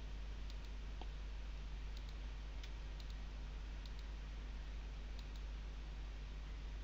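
Several faint, scattered computer mouse clicks over a steady low hum and hiss.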